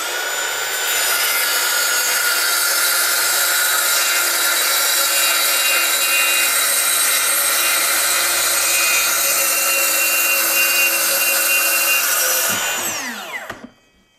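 Ridgid 18-volt brushless track saw running at full speed while its blade cuts along the guide rail through a sheet of 1/2-inch OSB. The steady, loud cutting sound lasts about twelve seconds, then the motor winds down with a falling pitch once the trigger is released.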